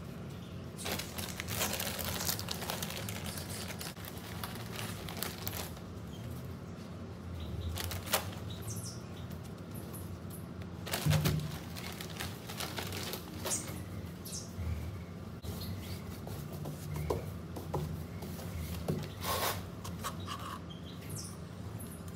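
Gloved hands working potting soil in a plastic planter: irregular rustling and crumbling of soil with a few sharp clicks, over a steady low hum.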